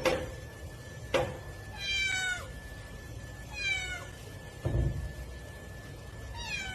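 A cat meowing three times, each call falling in pitch. There is a sharp click about a second in and a dull thump near five seconds.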